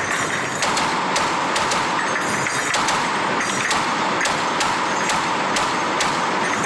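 .50-caliber machine gun firing a steady string of sharp shots, about three a second, over a constant rushing noise.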